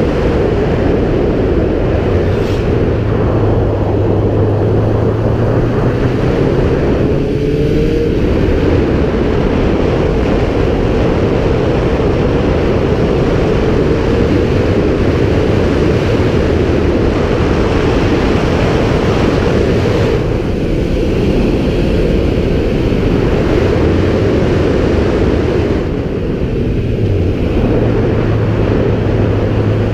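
Kawasaki Z750's inline-four engine running at road speed, mixed with heavy wind rush over the microphone. The engine note rises briefly about seven seconds in, and dips briefly about twenty seconds in and again near the end.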